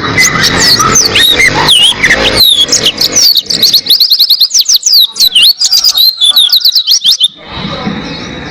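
A white-eye (pleci) singing a long, fast song of high chirps and sweeping, twittering notes. It breaks off about seven seconds in.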